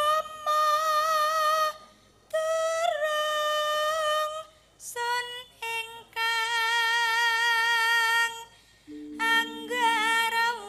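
A female Javanese sinden singing a solo vocal line in several phrases of long, held notes with vibrato, separated by short breaths.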